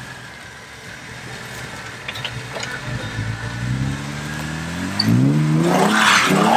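Jeep Wrangler JK Unlimited's V6 engine working under load as it climbs a rough off-road trail. It runs low and steady at first, then revs up in surges from about four seconds in, getting louder toward the end.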